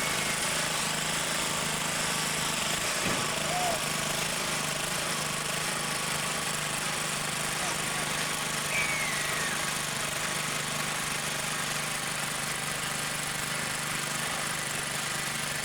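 A small engine running steadily, with a wide even hiss over a constant low hum.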